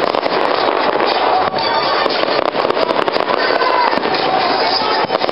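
Fireworks display: a dense, continuous barrage of crackling cracks and bangs.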